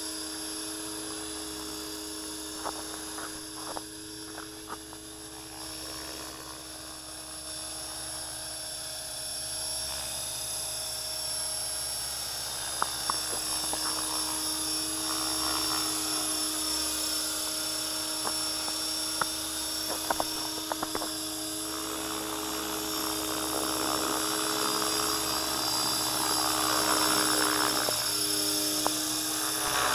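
Align T-Rex 500 electric RC helicopter running: a steady whine from its electric motor and spinning rotor, getting louder toward the end as it comes closer, with a few sharp clicks scattered through.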